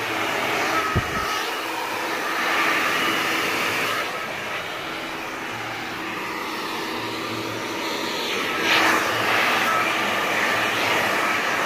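Handheld hair dryer running steadily with a whine and a rush of air, used with a round bristle brush for a straight blow-dry. It gets quieter from about four seconds in and louder again near the end as the dryer is moved along the hair. There is one short thump about a second in.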